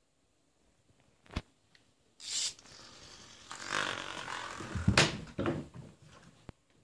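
A thrown wind-up toy mouse clattering onto a hardwood floor, then a cat scrabbling and sliding across the floor after it. There is a sharp click early on, a short rattle a couple of seconds in, and a run of scuffing and knocks that is loudest about five seconds in.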